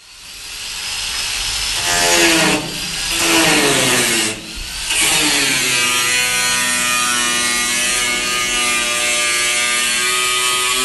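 Angle grinder with a cutting disc cutting into a rusted sheet-steel car floor pan: a loud whine over a grinding hiss. Its pitch sags under load twice, with two short breaks in the first half, then it settles into a steady cut.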